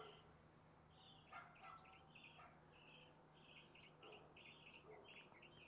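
Faint birdsong: a small bird giving a run of short, high chirps, about two or three a second.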